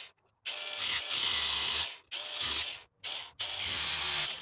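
Ryobi angle grinder with a cut-off disc cutting down a steel bolt to make a battery terminal stud. It runs in several bursts of about a second or less, with short breaks between.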